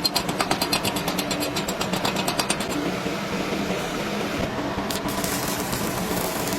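Welding: a fast, even run of crackling ticks, about eight a second, for the first three seconds over a steady machine hum, then a sizzling hiss near the end.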